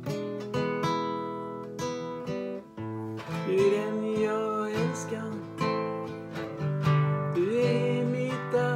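Classical acoustic guitar strummed and picked in a slow accompaniment, chords ringing on. A voice holds two long wordless notes, sliding up into each, about three and a half and seven and a half seconds in.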